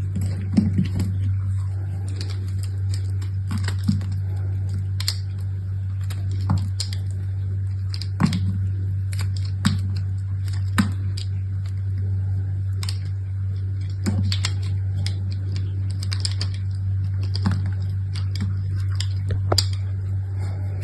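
Soap packaging being handled and opened: scattered light clicks, taps and crinkles at an uneven pace, over a steady low hum.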